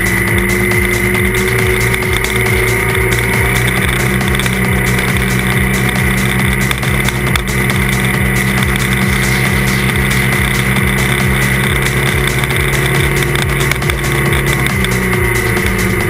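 Trail motorcycle engine running at a steady cruise, its pitch holding level throughout.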